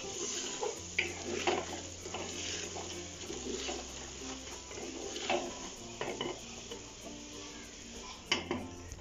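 A wooden spoon stirring chicken curry in an aluminium pressure cooker, with scattered sharp knocks and scrapes against the pot's sides. The masala sizzles faintly underneath.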